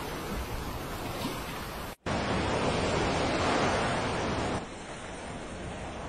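Steady rushing noise of ocean waves and surf. It cuts out for an instant about two seconds in, then comes back and drops quieter about three-quarters of the way through.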